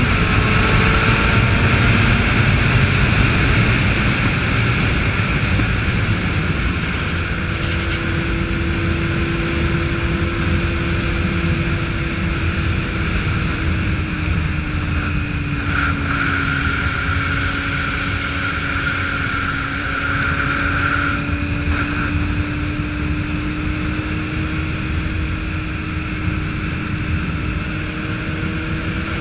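Motorcycle engine running at a steady cruise under heavy wind rush on the microphone. The engine note eases a little midway and climbs again near the end.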